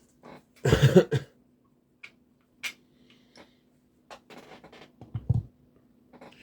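A man coughs once, heavily, about a second in, followed by scattered light clicks and taps.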